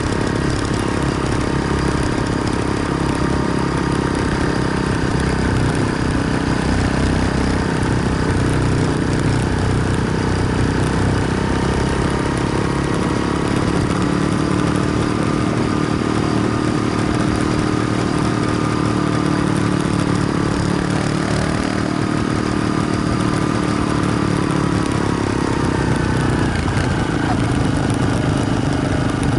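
Motorcycle engine running at a steady speed while under way, with wind and road noise; its pitch shifts slightly near the end.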